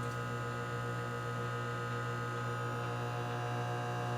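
Microwave oven running mid-cycle, a steady electrical hum with a buzzy ring of overtones.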